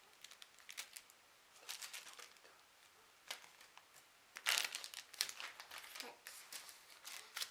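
Plastic packaging crinkling and rustling in irregular bursts as a squishy toy is unwrapped, loudest a little past halfway.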